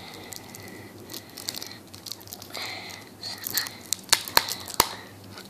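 Small chocolate milk carton being torn lightly along its marked tear line: soft crinkling and tearing, with three sharp clicks about four to five seconds in.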